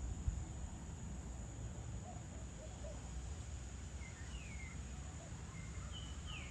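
Evening outdoor ambience: a few short, falling bird chirps in the second half, over a steady high insect drone and a low rumble.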